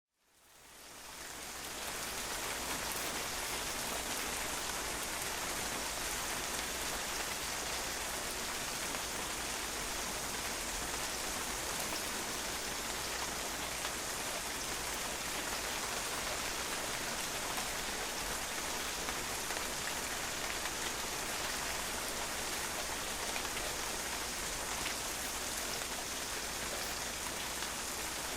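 Steady rain falling and splashing on a patio, an even, unbroken hiss. It fades in over the first second or two, then holds level.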